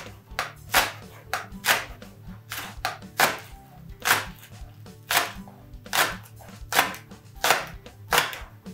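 Chef's knife slicing a spring onion's green stalk into thin rounds on a plastic cutting board: a sharp knock of the blade on the board about once a second.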